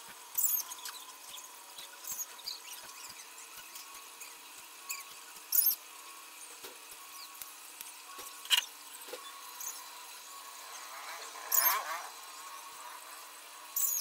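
Wire mesh of a cage trap clinking and rattling as it is handled and worked with pliers: irregular sharp metallic clicks, with a brief scraping squeal of wire on wire near the end.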